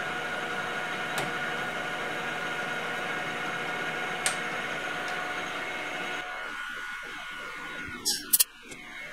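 Emco V13 metal lathe running, a steady hum and whine with the four-jaw chuck spinning and the tool facing the end of a leaded 4140 steel bar. About six seconds in the drive stops and the sound falls away. Near the end come a few sharp, loud metallic clicks.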